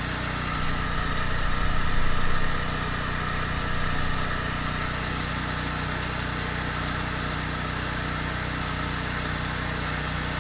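Kubota BX compact tractor's diesel engine idling steadily, swelling louder for a second or so about a second in, then settling back.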